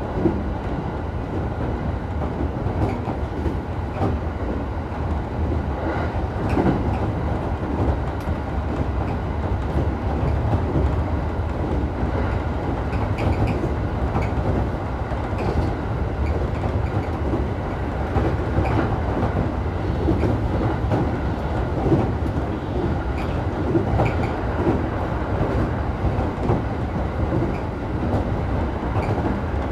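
Electric commuter train running between stations, heard from inside the passenger car: a steady rumble of wheels on the track, with occasional rail clicks.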